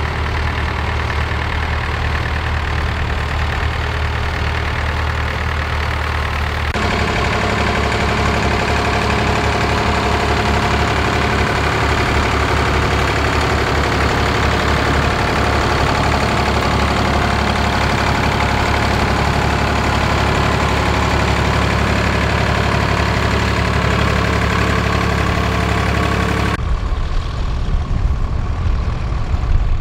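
Vintage tractor engines running steadily under load while ploughing, heard in three shots. A red tractor comes first, then a Massey Ferguson 135 from about 7 s in, then a Nuffield tractor near the end. The sound changes abruptly at each cut.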